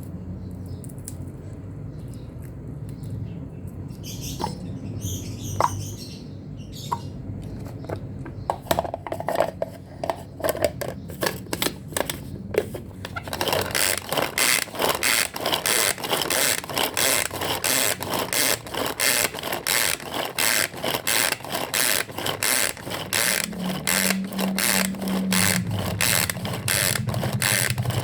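Kitchen knife chopping rapidly on a cutting board, in an even run of knocks at about four a second that starts about halfway through, after a few scattered clicks.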